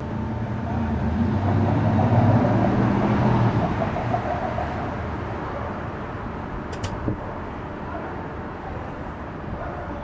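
A vehicle passing, its low droning hum swelling to the loudest about two to three seconds in and then slowly fading. A brief sharp click near seven seconds in.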